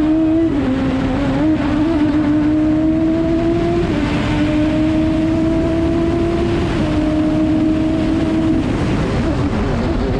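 Radical SR3 race car's four-cylinder engine heard from the cockpit at full throttle, the note climbing slowly through each gear and dropping with upshifts about half a second, four and seven seconds in, over wind and road noise. The engine note drops out about eight and a half seconds in, leaving the wind and road noise.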